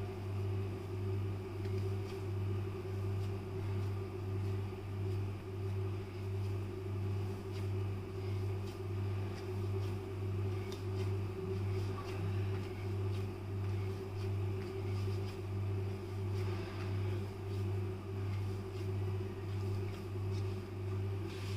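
A steady electric hum, like a fan or motor, swelling and dipping about once a second. Under it come faint soft squishes and taps of hands kneading crumbly chhena on a wooden chopping board.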